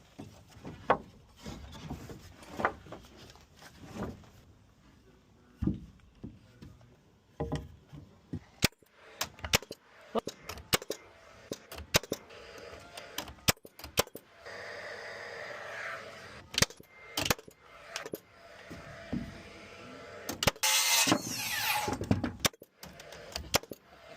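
House-framing work: irregular sharp knocks and clicks of tools on lumber, with a louder burst of noise about three-quarters of the way through.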